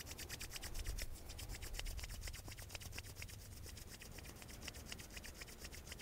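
Palms of two hands rubbed quickly together, a soft rhythmic swishing of skin on skin at several strokes a second, done to warm the hands.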